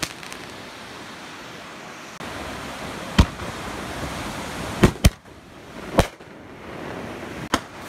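Consumer fireworks going off: five sharp bangs, two of them close together in the middle, over a steady rushing hiss.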